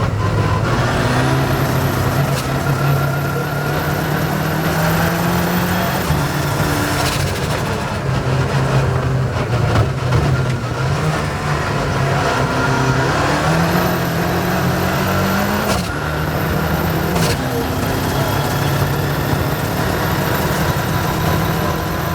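Rally car engine heard from inside the car while driving on a stage, its note rising and falling as it accelerates and eases off. A very high thin whine comes in twice, about a second in and again around fourteen seconds.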